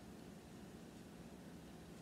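Near silence: faint steady room hiss.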